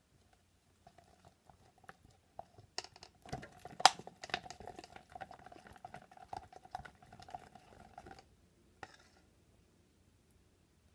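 Plastic stir stick stirring thick glitter glue and gold pigment powder in a plastic cup, with quick irregular clicking and scraping against the cup's sides. It stops about eight seconds in, followed by a single light tap.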